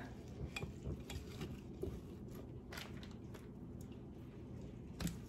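Faint scattered clicks and soft handling noises of cooked chicken and turkey bones being pressed by hand into a stainless steel Instant Pot insert, with a sharper knock near the end.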